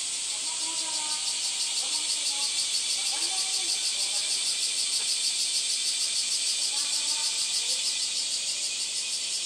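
Cicadas singing in a loud, shrill chorus that pulses several times a second, swelling about a second in and easing near the end.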